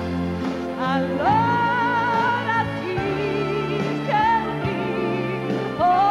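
A woman sings a slow Italian ballad, holding long notes with vibrato, accompanied by piano and strings.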